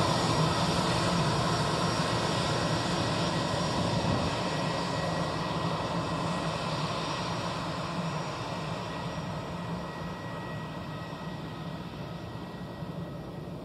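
An easyJet Airbus A320-200's twin jet engines running at taxi power: a steady rush with a high whine over it. The sound fades gradually as the aircraft rolls past and turns away.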